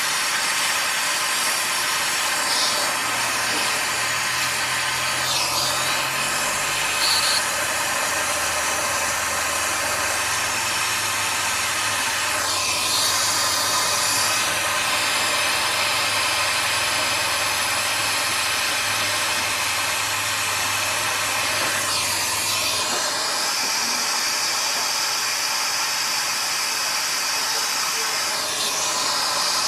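Brazing torch flame burning with a steady hiss as copper refrigeration tubing is brazed to the filter drier, its sound shifting slightly now and then as the flame is moved.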